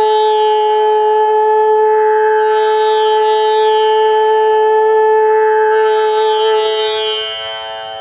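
A-natural bamboo bansuri holding one long steady note, its Sa, over a tanpura drone whose strings are plucked again every second or two. The flute note fades out near the end while the drone carries on, and it sits at the drone's pitch: the flute is in tune.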